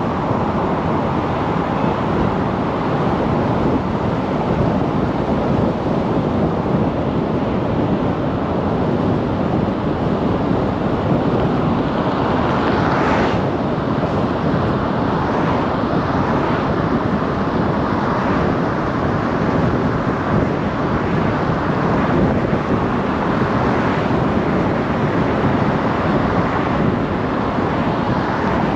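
Steady road and wind noise from a moving car, with a brief louder rush about 13 seconds in.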